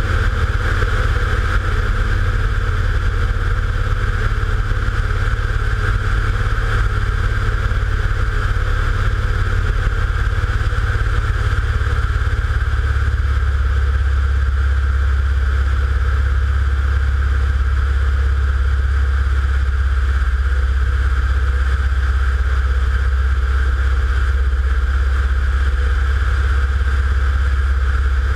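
Steady drone of an aircraft's engine and propeller, heard from a camera mounted on the aircraft in flight. The low rumble shifts to a steadier, deeper hum about twelve seconds in.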